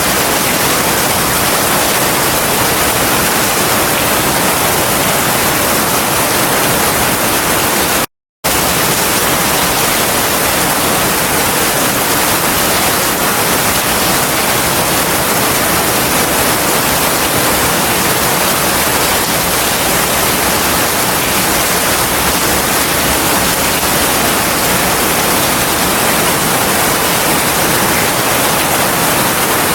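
Heavy rain falling as a steady, dense hiss with no distinct drops or thunder. It cuts out completely for a split second about eight seconds in, then resumes unchanged.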